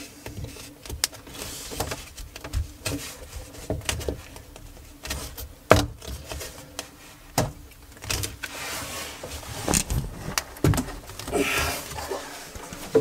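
Irregular clicks, knocks and rubbing of plastic as a hand works a washing machine's drain hose connection on the plastic sink waste trap, with a few sharper knocks.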